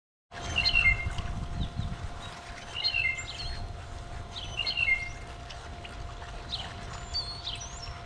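A large flock of blackbirds at a feeder, calling over and over: short gliding phrases about a second, three and five seconds in, then thin high whistles near the end, over a low steady rumble.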